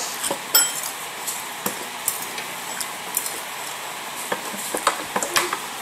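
Close-up eating sounds: a metal spoon scooping noodle soup and clinking against the bowl in scattered short clicks, with wet chewing.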